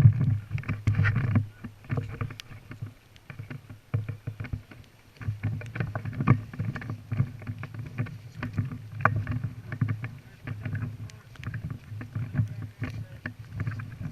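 Irregular rustling, scuffing and low knocks of movement and gear close to the microphone, with scattered sharp ticks.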